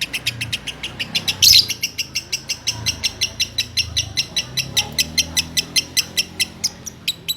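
A small songbird calling in a fast, even series of short high chirps, about eight a second, with one louder, harsher call about a second and a half in.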